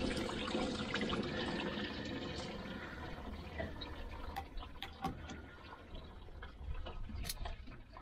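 Engine coolant running out of a disconnected hose at the water outlet housing and splashing into a bucket below. The flow eases off over the seconds toward dripping, with a few small clicks of hand tools on the hose clamps in the second half.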